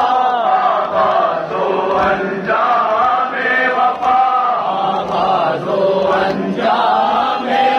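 Many male voices chanting together in a drawn-out Muharram devotional chant.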